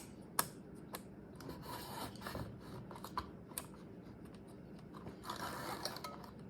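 Small chainsaw's chain and bar handled by hand while its tension is checked: a few sharp metallic clicks and two stretches of scraping and rattling as the chain is pulled along the bar.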